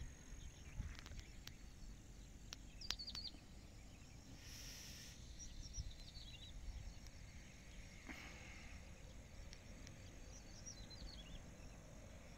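Faint outdoor ambience: a low rumble of wind, a steady high insect drone, and a few short high bird chirps, with a brief hiss about four and a half seconds in.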